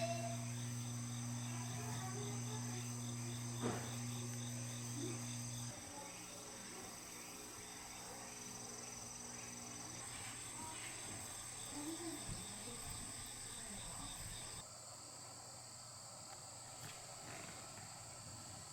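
Insects chirping steadily with high, thin, continuous tones, over a low steady hum that stops about six seconds in. The background changes abruptly a few times.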